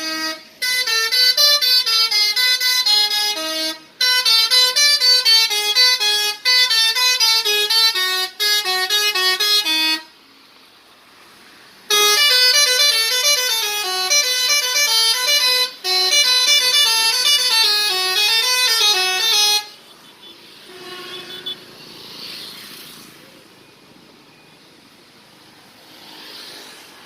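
Indonesian 'telolet' bus horn, a set of multi-tone air horns, playing a rapid tune of short notes in several bursts. It stops for about two seconds near the middle, then plays again. About two-thirds of the way through it stops, leaving only faint background noise.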